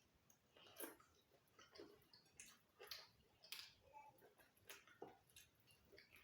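Faint, irregular chewing and lip-smacking of people eating roasted chicken and plantain, with scattered small mouth clicks.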